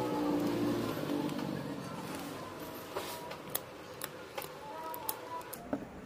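Needle-nose pliers clicking and scraping against an open dynamic microphone capsule: a handful of sharp ticks spread over the last few seconds. A steady low hum fades away in the first second.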